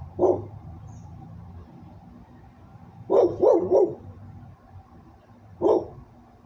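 A dog barking in short single barks: one, then three in quick succession about three seconds in, and one more near the end.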